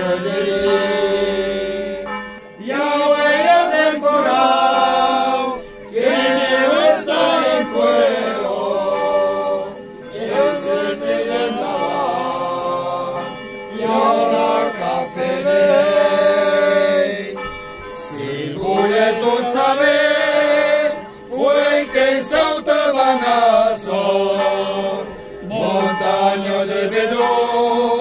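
A small group of voices singing a Christmas carol together, in sung phrases of a few seconds with short breaks for breath between them.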